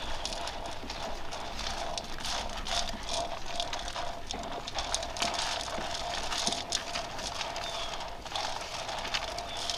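Repeated knocks and scrapes of a cooking utensil working in a vessel, irregular but continuous, over a steady hiss.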